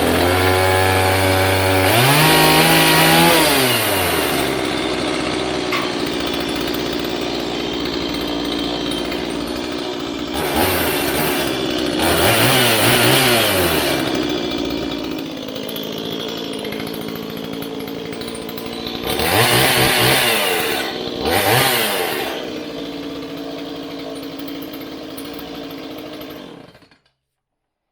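Stihl MS170 two-stroke chainsaw running with the chain brake on: it starts on high idle from the starting throttle setting, and a throttle blip about two seconds in drops it to normal idle. It is revved briefly several more times, settling back to idle each time, and cuts off suddenly near the end.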